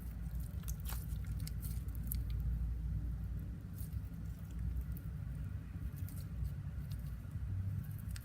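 Fluffy shaving-cream slime being kneaded and squeezed by hand to mix in food colouring, giving scattered small wet clicks and squelches over a low steady hum.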